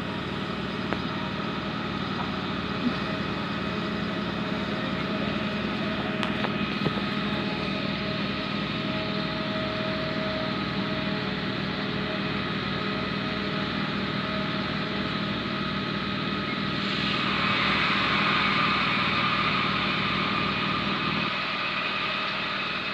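Fire appliance diesel engines running steadily at a building fire, with a fast low pulsing and several steady tones. The noise grows louder and hissier about 17 seconds in.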